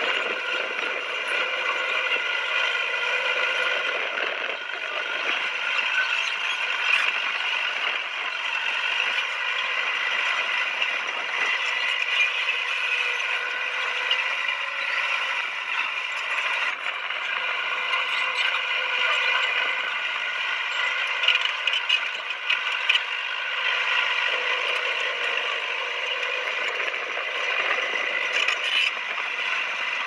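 Komatsu crawler bulldozer working: a steady mechanical drone with continuous clanking and rattling of its steel tracks.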